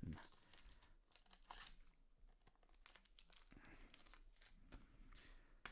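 Faint crinkling and crackling of thin plastic card packaging, with short irregular rustles, as trading cards are handled.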